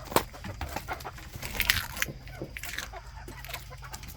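A flock of chicken hens clucking, with a few short sharp clicks among the calls.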